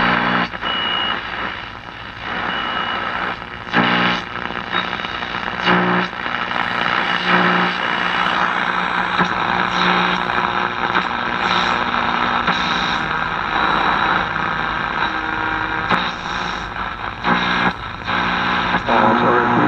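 Zenith G500 Trans-Oceanic shortwave tube radio giving steady static and hiss through its speaker as it is tuned across the bands, with a few brief whistles, sharp crackles and a low hum underneath. With no antenna connected, it picks up mostly static.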